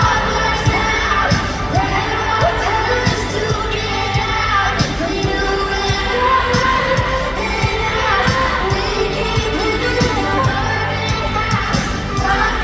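Pop song with a woman singing over a heavy, steady bass beat.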